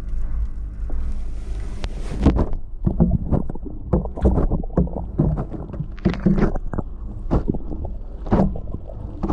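Washing machine drum tumbling its load, heard from inside the drum: a steady low rumble, with irregular sloshing surges and knocks of water and laundry beginning about two seconds in.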